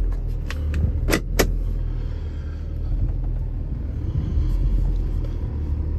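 Ford 6.7 L Power Stroke V8 diesel idling steadily, with a few sharp clicks or knocks about a second in.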